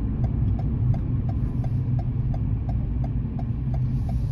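Steady low engine and road rumble inside a moving car's cabin, with the turn-signal indicator ticking about three times a second ahead of a right turn.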